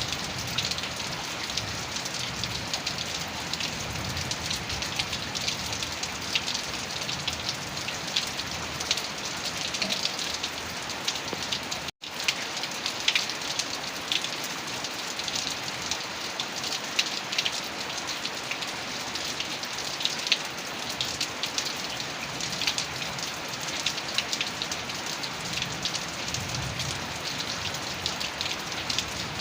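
Heavy rain falling steadily, a dense hiss full of individual drops ticking. The sound cuts out for an instant about twelve seconds in.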